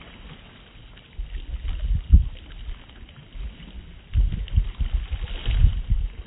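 Wind buffeting the microphone in irregular low rumbling gusts over choppy water, strongest about two seconds in and again from about four seconds on.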